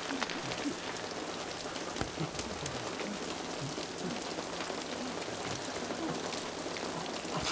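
Steady rain falling and spattering on hard surfaces, with many separate drops striking.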